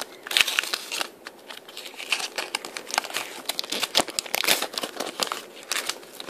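Plastic sticker-packet wrapper crinkling and tearing as it is opened by hand: a dense, irregular run of sharp crackles and rustles.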